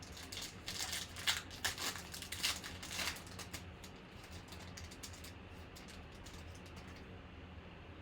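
Light, irregular clicks and rustles from trading cards being handled and flipped through. They come thickly for about the first three seconds, then more sparsely, over a steady low electrical hum.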